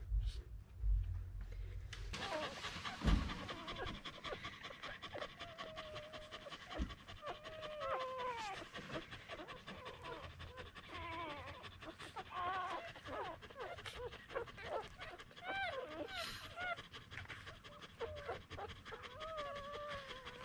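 Miniature Australian cattle dog mother panting, with frequent short high squeaks and whines from her one-day-old puppies as they nurse, starting about two seconds in.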